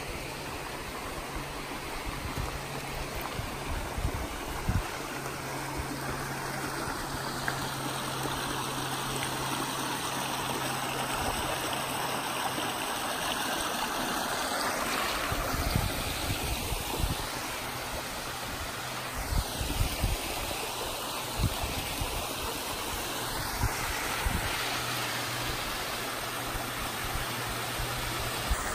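Creek water running and splashing over rocks and small cascades, a steady rushing noise, with occasional short low bumps on the microphone.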